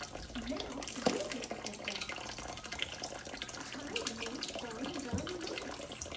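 Kitchen tap running into a stainless steel sink, with a single knock about a second in.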